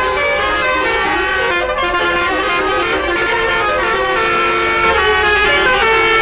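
Tour bus basuri telolet horn playing a melody: several horn tones sounding together, stepping from note to note every fraction of a second, loud and unbroken.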